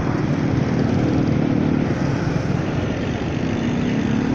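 Motorcycle engine running steadily while cruising, with constant road noise.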